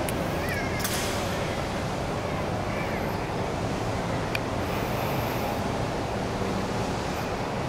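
Steady background noise of a large marble hall, with a low murmur of onlookers. A sharp click comes about a second in, and a fainter tick around four seconds.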